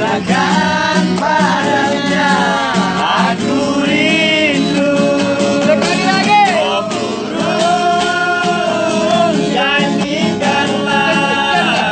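Men singing a song in high, strained voices to an acoustic guitar, the melody held high and sustained on long notes.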